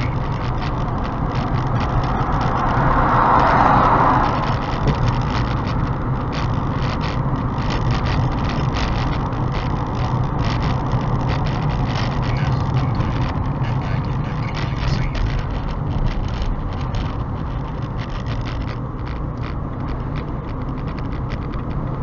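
Car interior noise while driving, picked up by a mirror-mounted dashcam's built-in microphone: steady engine and tyre rumble with fine crackle. A louder hiss swells briefly a few seconds in.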